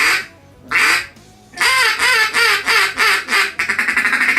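Single-reed cocobolo mallard duck call being blown, loud and bright: two drawn-out quacks, then a quick run of about seven shorter quacks, then a rapid rolling feed chuckle starting about three and a half seconds in.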